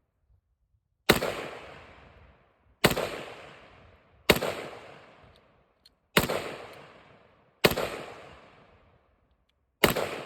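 Six single gunshots, fired one at a time about one and a half to two seconds apart, each cracking sharply and then dying away in a long echo.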